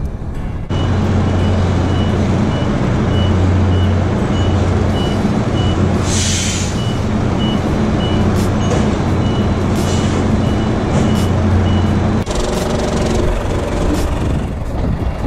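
Tractor-trailer truck reversing: its diesel engine runs steadily under a high reversing beeper that sounds about twice a second, with a short hiss of compressed air about six seconds in. The beeping stops about twelve seconds in, as the truck comes to a halt.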